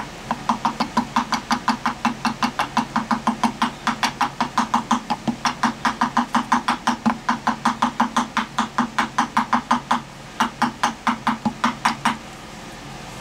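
Rapid light hammer taps on a metal part of a drain auger, about four or five a second with a slight ring to each. They stop briefly about ten seconds in, then go on. The part is being tapped onto a shaft and is a tight fit.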